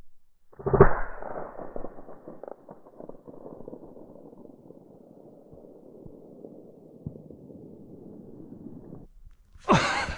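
A single rifle shot about a second in, its report rolling away across the open forest in a long echo that fades over several seconds. Near the end, a sudden burst of rustling and handling noise in the snow.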